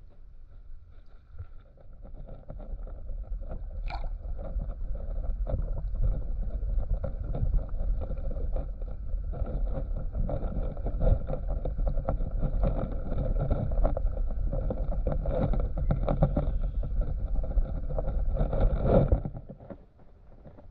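Stream current heard through a camera underwater: a low rumble with dense crackling and gurgling. It grows louder a couple of seconds in, has a sharp click about four seconds in, and drops away abruptly near the end.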